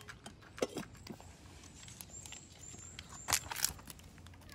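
Scattered small clicks and rustles, the loudest a couple of sharp clicks about three and a half seconds in; a cat starts to meow right at the end.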